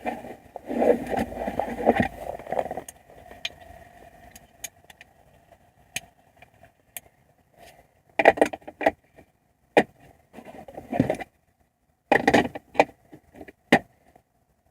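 Car interior trim parts and tools being handled: rustling and scraping at first, then scattered sharp clicks and clinks and several short bursts of clatter.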